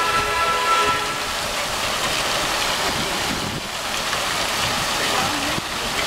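Fountain water jets spraying and splashing into the basin with a steady hiss. A held, horn-like chord of several tones sounds over it and cuts off about a second in.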